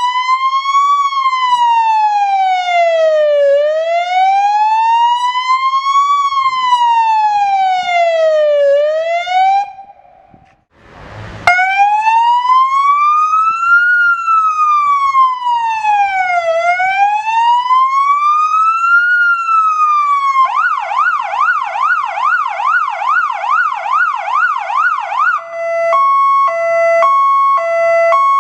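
Fire engine's electronic siren sounding, first in a slow rising-and-falling wail, briefly cut off about ten seconds in, then wailing again. About twenty seconds in it switches to a fast warble of about three rises a second, and near the end to a stepped pattern that jumps between a few fixed tones.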